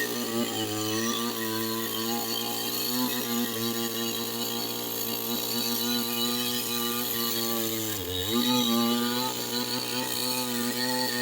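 Chainsaw engine running at a high, steady pitch while cutting wood. Its pitch dips sharply and recovers about eight seconds in.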